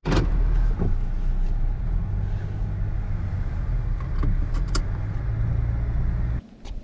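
Car interior noise while driving: a loud, steady low rumble of engine and road, opening with a sharp click and cutting off suddenly about six seconds in.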